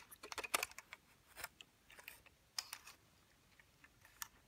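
Faint, scattered clicks and taps of handling: a die-cast Hot Wheels toy bus being turned in the fingers and put back down among the other toy cars, with a quick run of clicks in the first second and single ones after.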